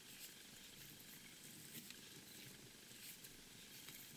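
Near silence: a faint steady hiss with a few soft, short ticks and rustles from fingers handling hackle fibres on a fly in the vise.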